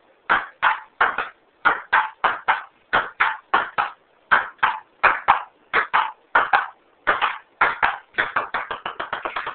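Ping-pong ball being batted back and forth, bouncing on the table and being struck in a rally, with crisp hollow clicks about two to three times a second. Near the end, a quick run of faster, closer-spaced bounces.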